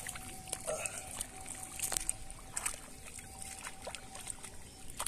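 Shallow paddy water sloshing and splashing as hands work the mud around a bamboo fish trap, with scattered small sharp splashes and clicks. A thin steady tone runs underneath and stops about four seconds in.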